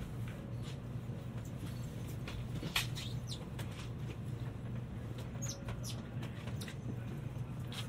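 Inside a Tokaido Shinkansen passenger car: a steady low rumble with scattered light clicks and creaks from the cabin, one sharper click about three seconds in.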